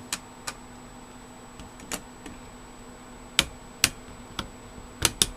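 Sharp plastic clicks and taps of DDR2 memory sticks being handled and fitted into motherboard DIMM slots, about eight in irregular succession, the loudest two in the middle and a close pair near the end.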